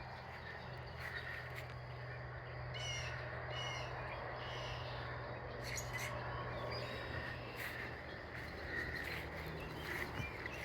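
Birds calling: scattered short calls throughout, with a cluster of quickly repeated notes about three seconds in, over a steady low hum.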